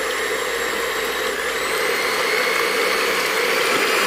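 Electric hand mixer running steadily with a constant motor whine, its beaters whisking raw egg whites that are still liquid, at the start of whipping them for meringue.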